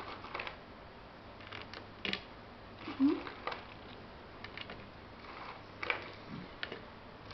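Scattered light taps and clicks of french fries being laid by hand onto a pizza on a plate, with a louder knock about three seconds in.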